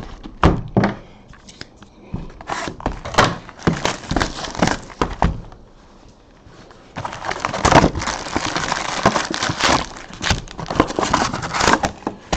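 Trading-card boxes and their packaging being handled and opened: a few knocks at the start, then crackling, and from about seven seconds in a dense run of crinkling and tearing of wrapper and cardboard.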